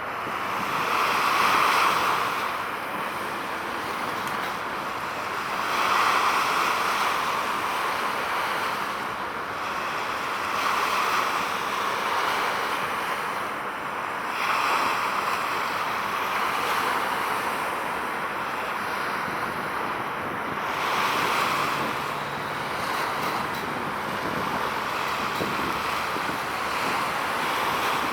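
Sea waves washing in, rising and falling every few seconds, with wind buffeting the microphone.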